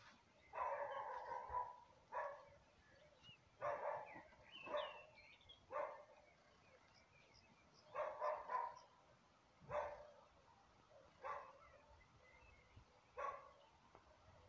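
A dog barking at irregular intervals, fairly faint. Some barks come singly and some in quick runs of two or three, the longest run about half a second in.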